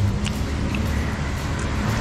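Steady low rumble of road traffic, with a couple of faint short clicks in the first second.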